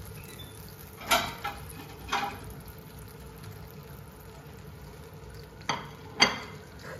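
A utensil knocking and scraping against a frying pan in a handful of sharp clacks, three in the first two seconds and two more near the end, as pan-fried Maultaschen are lifted out once done. Under it the pan sizzles faintly and steadily.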